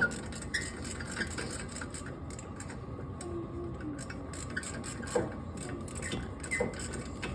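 Light, irregular metallic clicks and taps from tool work on a Jeep Cherokee's front wheel hub assembly being worked loose, with one sharper knock about five seconds in.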